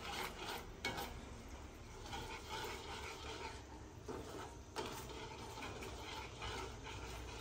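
Chopsticks stirring a thick chilli-and-tomato sauce simmering in a metal wok on a gas stove, with a few sharp taps of the chopsticks against the pan.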